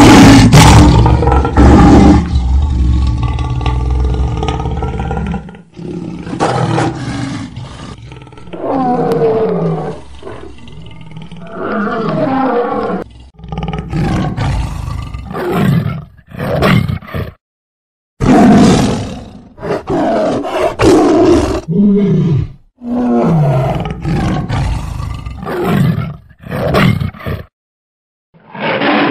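Big cats, a lion and then a tiger, roaring in a string of separate calls. A loud roar opens the sequence, and the calls are broken by two brief silent gaps, about 17 seconds in and near the end.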